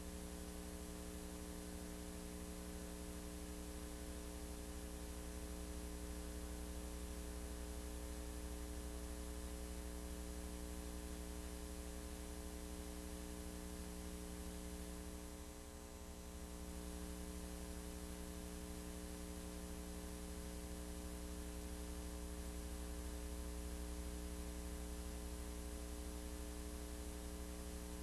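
Steady electrical mains hum with tape hiss, a recording artefact of an old videotape transfer rather than any machine, dipping briefly about 16 seconds in.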